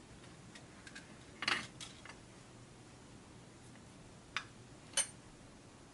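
Small tools and solder wire being handled on a workbench: a few faint, separate clicks and taps, with two sharper clicks near the end.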